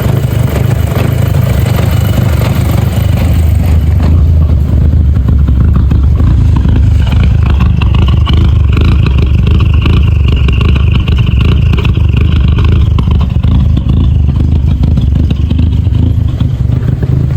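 VW Golf GTI MK5's 2.0-litre turbo four-cylinder idling unevenly with a misfire. The scan tool puts the misfire on cylinders 1 and 2, and the owner suspects a failed coil pack.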